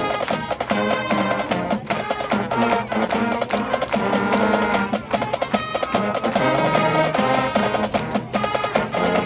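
High school marching band playing a piece, with sustained wind chords over quick, steady percussion strikes.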